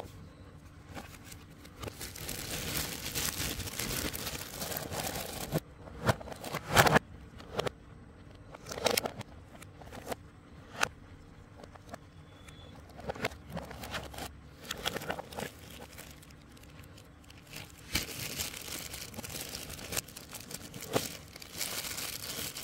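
Plastic packaging crinkling and rustling as parts of an LED light kit are handled and lifted out of the box, with scattered clicks and knocks of hard parts being picked up and set down. The loudest knocks come about seven seconds in.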